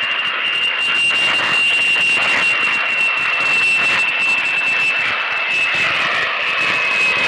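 Jet airliner flying low overhead: a steady rush of engine noise with a high whine that slowly drops a little in pitch.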